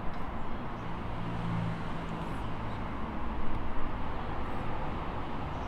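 Steady background road-traffic noise, with a low engine hum swelling a little about one to two seconds in.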